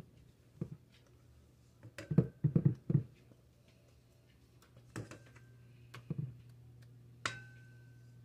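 Bowl and utensil knocking against a baking dish as thick cake batter is poured and scraped out. There is a run of dull thumps about two to three seconds in, then a few sharper taps, the last near the end leaving a short ringing tone.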